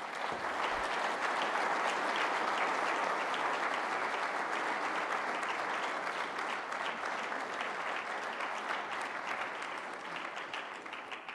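Audience applauding, a long round of clapping that starts at once, holds steady for several seconds and tapers off near the end.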